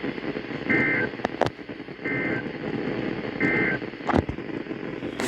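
Emergency Alert System end-of-message: three short bursts of SAME digital data tones, evenly spaced about a second and a half apart, over a steady hiss with two sharp clicks.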